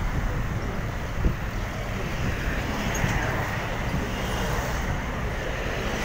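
City street traffic: a steady rumble and hiss of passing cars, with a brief thump about a second in.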